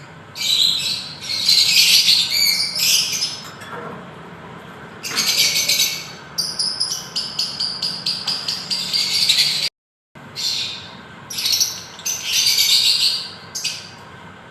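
Lovebird chirping in several bouts of shrill, rapid high calls, with short pauses between bouts. The sound cuts out completely for a moment about ten seconds in.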